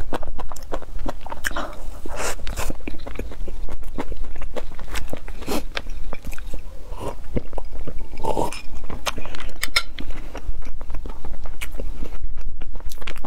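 Close-miked eating sounds: biting and chewing food, with many quick wet mouth clicks and smacks throughout, over a steady low hum.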